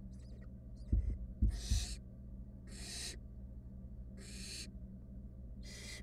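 Barn owl nestlings' food-begging calls: four long, noisy hisses, about one every second and a half. Two dull thumps come about a second in.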